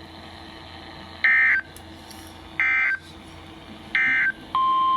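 Three short bursts of EAS SAME digital data, buzzy two-pitch warbles about a third of a second each and about 1.3 s apart: the end-of-message code that closes a weather radio warning. About four and a half seconds in, a steady single-pitched alert tone starts: the 1050 Hz NOAA Weather Radio warning tone that heralds the next alert.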